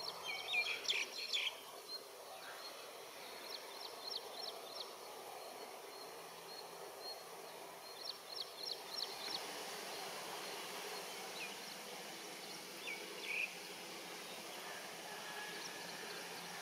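Small birds chirping in short bursts of quick high notes, about four times, over a faint steady outdoor background.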